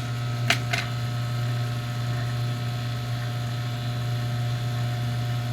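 Electric opener motor running steadily in the down direction under a repaired control board, after the safety sensor has been cleared, a steady low hum. Two sharp clicks come about half a second in.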